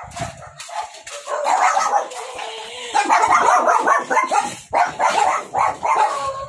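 A dog barking and yapping rapidly, almost without pause, from about a second in.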